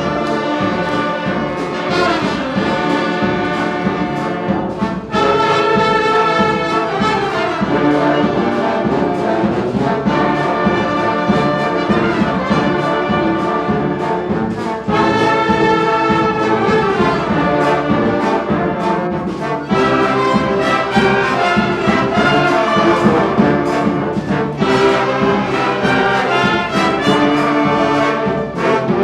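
A brass ensemble playing a piece live at full volume: sustained chords over a steady pulse of notes, with brief breaks between phrases.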